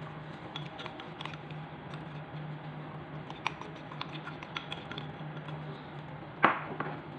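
Light clicks and taps of a spoon against a small bowl and a glass baking dish while marinade is spooned onto a fish fillet, with one louder knock near the end. A steady low hum runs underneath.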